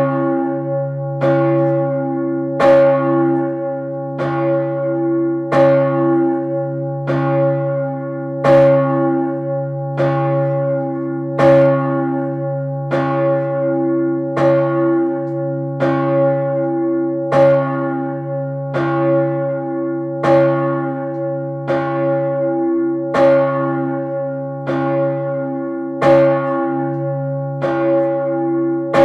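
Urban, the 3200 kg bronze church bell cast by Peter Gräf in 1588 and tuned to about C-sharp, swinging and ringing. Its clapper strikes evenly about every second and a half, and a deep hum carries on between strokes.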